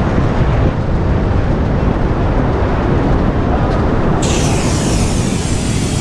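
4x4 driving along a sand beach: a loud, steady rumble of engine and tyres mixed with wind buffeting the microphone. A higher hiss joins about four seconds in.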